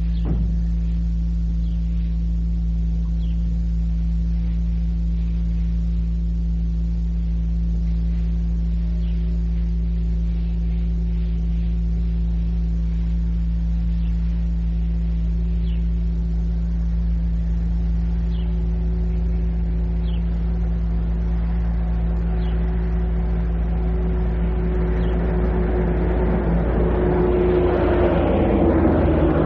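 Steady low electrical hum on an old cassette recording. A motor vehicle approaches and grows steadily louder over the last several seconds. Faint short chirps come now and then.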